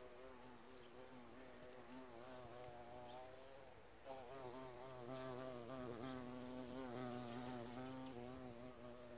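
A bee buzzing in flight, its pitch wavering up and down as it moves about, growing louder about four seconds in.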